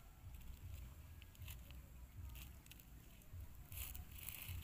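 Faint crinkling and ticking of a plastic snack wrapper being handled, over a steady low rumble; the crinkling is busiest near the end.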